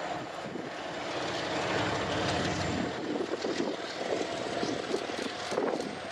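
Diesel locomotive engine running with a steady rumble, with scattered short clicks over it.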